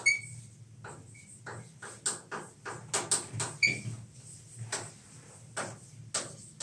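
Chalk writing on a chalkboard: a quick series of short scratching strokes and taps, with a few brief high squeaks from the chalk.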